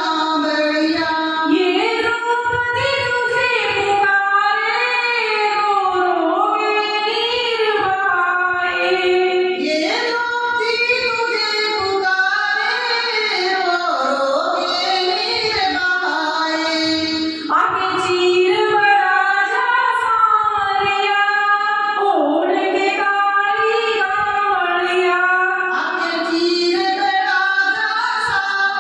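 A woman singing a Hindi devotional bhajan to Krishna in long, melodic phrases that run on without a break.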